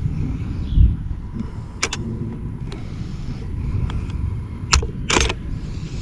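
Shotgun being handled and loaded: a few sharp metallic clicks, then a short clatter about five seconds in, over a low rumble.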